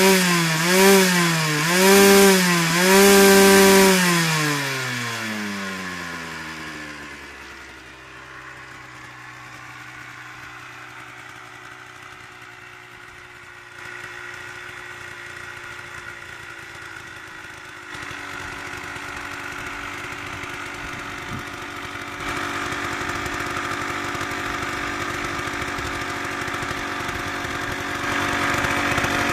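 2006 Aprilia RS 125's two-stroke single-cylinder engine revved in about four quick blips in neutral, then dropping back to a steady idle. The idle gets louder in steps toward the end.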